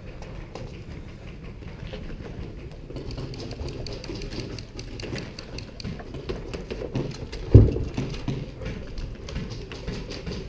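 Footsteps and gear movement from an airsoft player on the move, with irregular sharp clicks and knocks and one loud thump about seven and a half seconds in.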